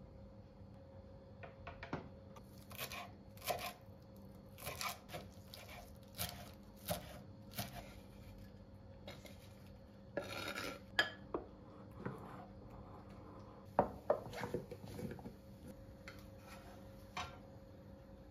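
Metal utensils clinking and scraping against a glass mixing bowl of crepe batter and a frying pan: a run of sharp clinks, a short scraping burst about ten seconds in as greens are stirred in, then more clinks. A faint steady hum runs underneath.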